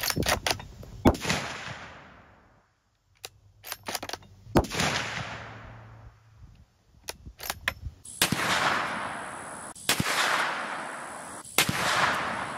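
Rifle shots from a Ruger American Ranch in 450 Bushmaster, recorded on a failing microphone: several sharp cracks with clusters of crackling clicks, each trailing off over a second or two.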